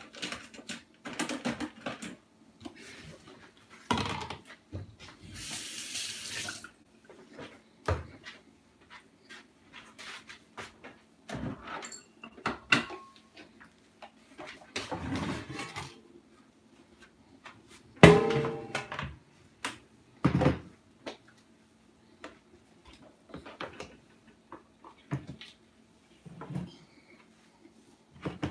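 Kitchen work sounds: scattered knocks, clinks and clatter of cookware and utensils being handled, with a loud knock about eighteen seconds in. A rush of noise lasts about a second and a half, about five seconds in, and a faint low hum runs underneath.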